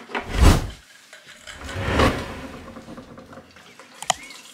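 Plastic gas cans being handled: a heavy thump about half a second in, a rustling scrape that swells and fades around two seconds, and a sharp click near the end.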